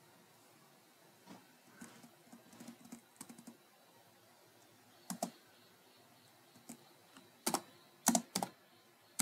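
Computer keyboard being typed on in irregular keystrokes: light taps about a second in, then a few louder single key strikes, spaced out, in the second half.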